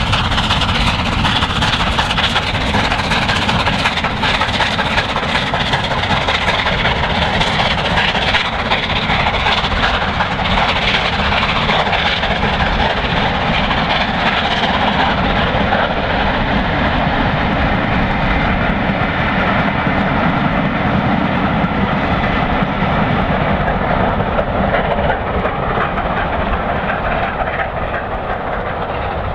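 Bulleid 'Battle of Britain' class light pacific steam locomotive 34067 Tangmere working hard as it hauls its train past, with the steady noise of the coaches running by. The sound grows duller from about halfway and a little quieter near the end as the train moves away.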